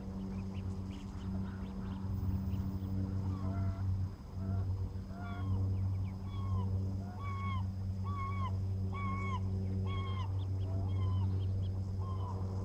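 Waterfowl calling: a run of short, clear honk-like calls, each bending quickly up and down in pitch, about one a second through the middle, with fainter high peeps around them, over a steady low hum.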